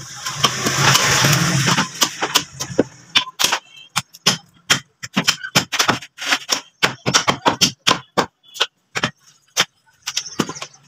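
Heavy cleavers chopping meat and bone on wooden chopping blocks, two people striking at once, with irregular sharp chops several times a second. Over the first three seconds a steady rushing noise with a low hum lies under the chopping.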